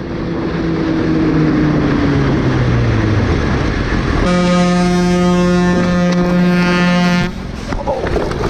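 Wind and road noise from a moving motorcycle, with an engine drone that sinks in pitch. About four seconds in, a vehicle horn blares in one long, steady blast of about three seconds and cuts off sharply, followed by rougher road noise.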